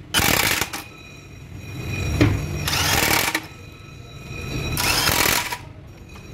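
Handheld electric drill run in bursts: a short burst at the start, then two longer runs of about a second each that swell up and cut off.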